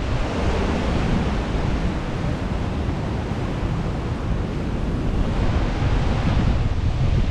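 Strong wind buffeting the microphone in gusts, over the rushing noise of sea surf.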